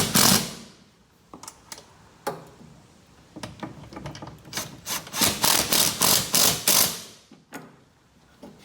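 A 12 mm ratchet tightening a bolt: runs of quick back-and-forth ratcheting strokes, about three or four a second, with a few separate clicks between them and the longest run in the middle.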